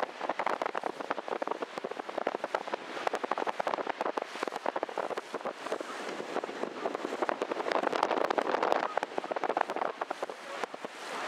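Wind buffeting the microphone and water splashing past a moving sightseeing boat on choppy lake water: a dense crackling noise that swells and fades.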